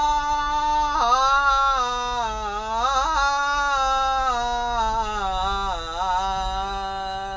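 A man singing one long drawn-out note with no accompaniment, the opening of a Bhojpuri song. The note holds steady, then about a second in drops and wavers with a few turns, and sinks slowly lower in pitch while growing a little softer.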